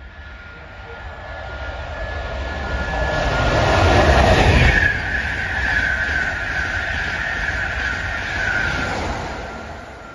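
An LNER InterCity 225 electric express, a Class 91 with Mark 4 coaches and a driving van trailer, passing through at speed. Its rushing noise and high whine build to their loudest about four to five seconds in as the front goes by. The rush of the coaches then holds steady before fading as the train draws away.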